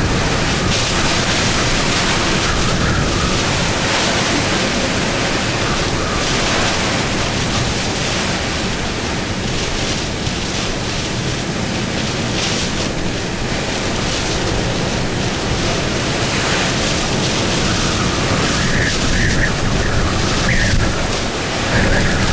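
Hurricane-force wind in a hurricane's back eyewall: a loud, steady rush that swells and eases in gusts and buffets the microphone. A high whistle comes and goes near the end.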